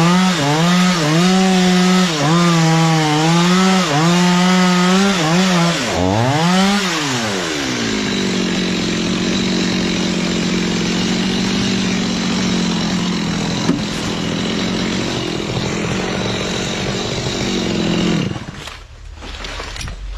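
Chainsaw cutting through a coconut palm trunk, its engine note dipping and recovering about once a second as it bogs under load. Then the pitch falls and rises sharply, and the saw runs at a steadier, lower, rougher note before dropping away near the end.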